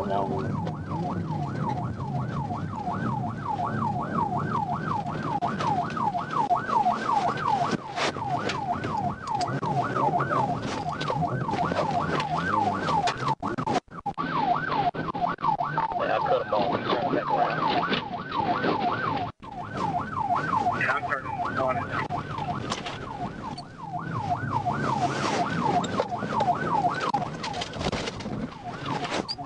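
Police patrol car's siren in a fast yelp, its pitch rising and falling about three times a second, over the car's engine and road noise. The sound cuts out briefly twice in the middle.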